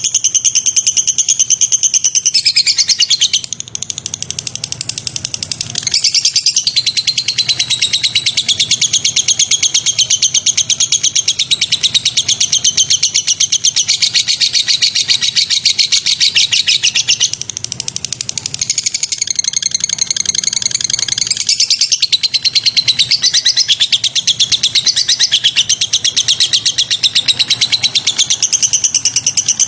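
Songbird chirping in rapid, high-pitched trills, one fast run of notes after another with hardly a break; it eases off briefly twice.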